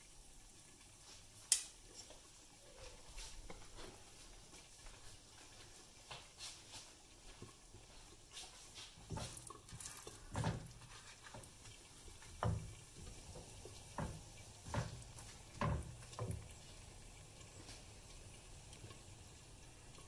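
Hot oil with cumin powder, dried red chillies and bay leaves sizzling faintly in a nonstick frying pan while a silicone spatula stirs it. There is a sharp click about a second and a half in, and a run of knocks and scrapes of the spatula against the pan in the second half.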